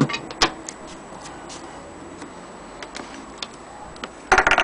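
Handling noise: a couple of sharp clicks at the start, a few faint ticks, then a short burst of clatter near the end. There is no steady rhythm, so the sewing machine is not being cranked.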